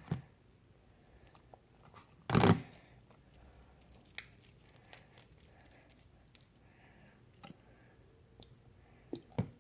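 Homemade slime being squeezed and stretched by hand, with sticky tearing and crackling noises, one much louder burst about two and a half seconds in, and a few small clicks.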